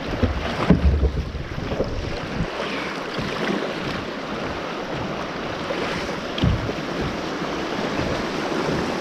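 Steady rush of river water around a sit-on-top kayak running a riffle, with a few low thumps near the start and another about six and a half seconds in.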